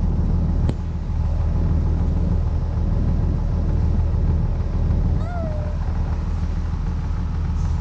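An engine running steadily with a low rumble, and one short gliding bird call about five seconds in.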